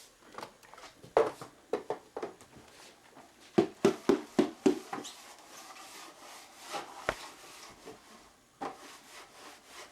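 Irregular light knocks, clicks and rubbing of small hard objects being handled, in two quick clusters about a second in and around four seconds in, with a few single knocks later.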